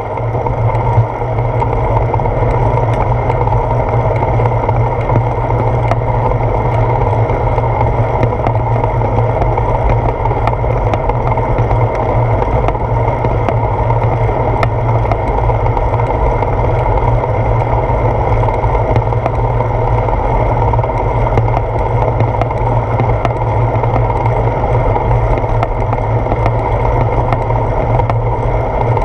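Steady wind and road rumble on a handlebar-mounted GoPro Hero 4's microphone as the bicycle rolls along, loud and deep, with faint scattered ticks.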